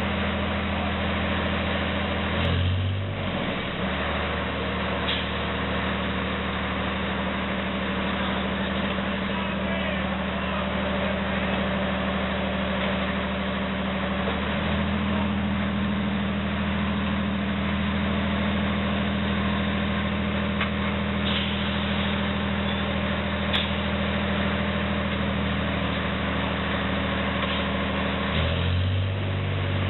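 Heavy diesel engine running steadily. Its speed drops about three seconds in and rises again near the end.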